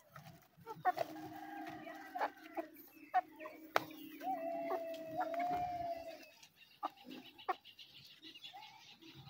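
Plymouth Rock x Rhode Island Red crossbred hens clucking softly while they forage, with scattered small clicks and one longer drawn-out call about four to six seconds in. A low steady hum sits underneath and stops about six seconds in.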